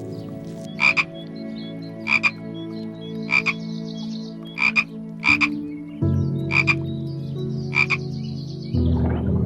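Six short croaking calls, each a quick double pulse, a little over a second apart.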